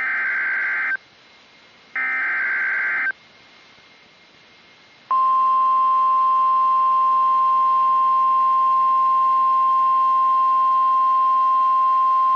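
NOAA Weather Radio emergency alert (EAS/SAME) header: two harsh, buzzing data bursts about a second long each, then after a two-second gap the steady single-pitch weather radio warning alarm tone begins about five seconds in, announcing a new warning broadcast.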